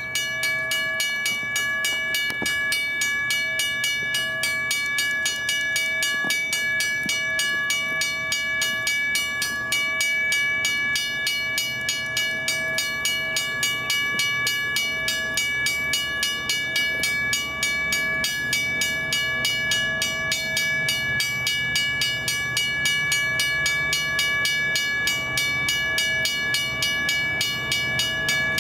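Federal Signal mechanical level-crossing bell ringing continuously with rapid, even strikes, each leaving a steady ringing tone. The crossing is activated for an approaching train.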